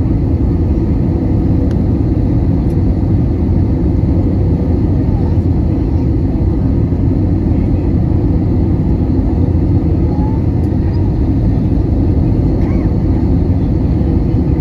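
Steady cabin rumble of an Airbus A320 in flight on its landing approach: engine and airflow noise heard from a window seat beside the wing engine, even and unbroken, with a faint steady whine above it.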